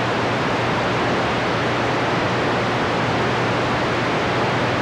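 CB radio receiver hissing steadily with open-squelch static while no station is keyed up on the channel, with a faint low hum underneath.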